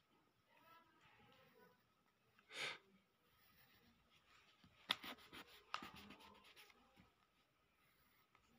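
Pencil scratching faintly on sketchbook paper. There is a soft swish about two and a half seconds in, then a quick run of short scratchy strokes around five to six seconds.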